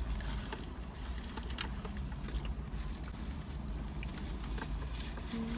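People chewing food and rustling paper wrappers inside a car, scattered small clicks and crackles over a steady low rumble.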